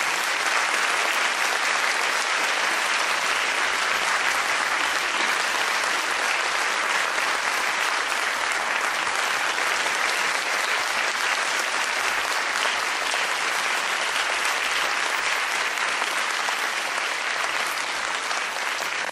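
Steady applause: many hands clapping in a dense, even patter throughout.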